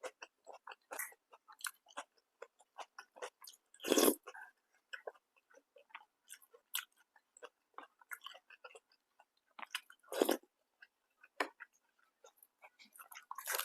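Close-up chewing and wet mouth sounds of someone eating a meal, a steady run of small clicks and smacks, with two louder bites or crunches about 4 seconds and 10 seconds in.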